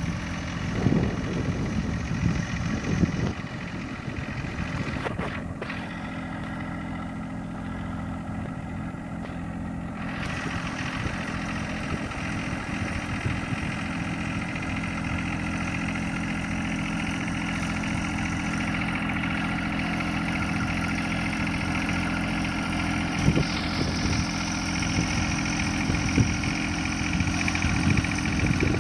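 John Deere sub-compact tractor's diesel engine running steadily at low, even revs while it pulls a planter slowly down a row, with a few short knocks near the start and near the end.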